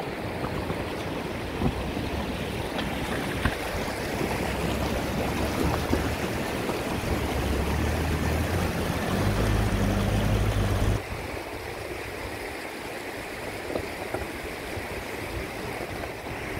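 Chevrolet Trailblazer's engine running at low speed as the SUV crawls past close by over rocks and grass. The hum builds to its loudest, then drops away abruptly about eleven seconds in. A steady rushing noise runs underneath.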